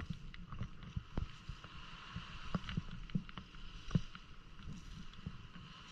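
Scattered light knocks and thumps at irregular intervals, the strongest about four seconds in, over a steady hiss.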